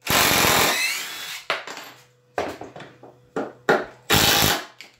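Cordless impact driver running: one longer run of about a second and a half, then several short trigger blips.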